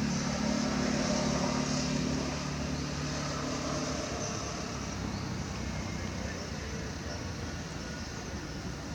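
Steady low hum of a vehicle engine running, dropping away about four seconds in, over constant outdoor background noise.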